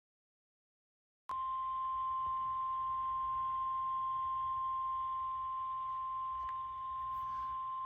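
NOAA Weather Radio's 1050 Hz warning alarm tone: a single steady tone that comes on suddenly about a second in, after a short silence, with radio hiss and a low hum beneath it. The tone signals that a warning broadcast follows, here a severe thunderstorm warning.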